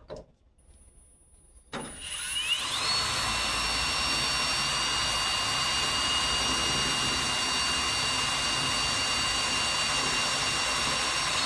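Electric drill spinning up about two seconds in with a rising whine, then running at a steady high pitch while drilling a rivet-nut hole in the car door's sheet metal.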